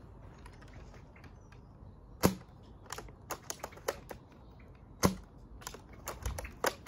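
Bolt-action BB rifle firing two shots about three seconds apart, each a sharp snap, with lighter clicks in between and after.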